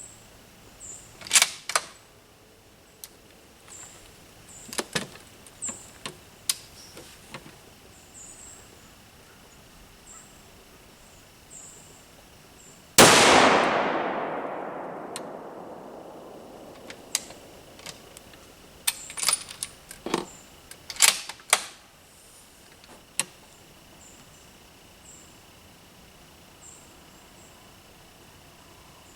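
A single .270 Winchester rifle shot from a Winchester Model 70 Lightweight, about 13 seconds in, fired with 130-grain handloads; the report is loud and sudden and its echo dies away over about three seconds. Before and after the shot come scattered sharp metallic clicks of the push-feed bolt rifle being handled and its bolt being worked.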